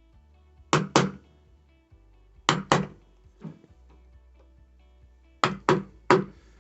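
A screwdriver driven into the wooden door edge with sharp knocks, mostly in quick pairs, about seven in all, scoring the outline of the deadbolt faceplate's recess in place of a chisel.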